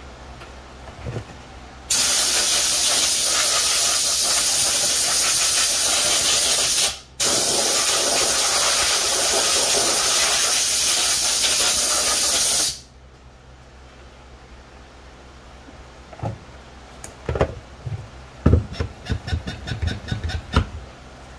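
Compressed-air blow gun hissing in one long blast, cut off briefly about halfway, plausibly blowing sanding dust off the plastic helmet. Near the end come a series of quick clicks and knocks.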